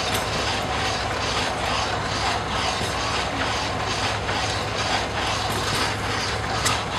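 Antique engine-driven drag saw cutting through a log: the crosscut blade rasps back and forth in a steady rhythm over the low, even hum of the running engine.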